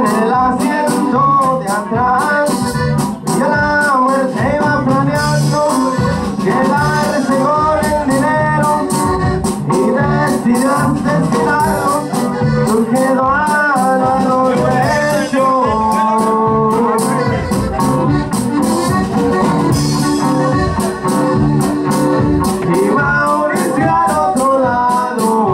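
Live norteño band playing a dance tune: accordion carrying a wavering melody over bass and a steady drum beat.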